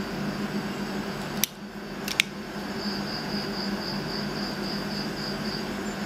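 Sharp metal clicks from a Leatherman Super Tool 300 EOD multi-tool as it is unfolded and its saw blade opened and locked: one click about a second and a half in, then a quick double click just after two seconds. A steady hum and a faint high, rapidly pulsing chirp run underneath.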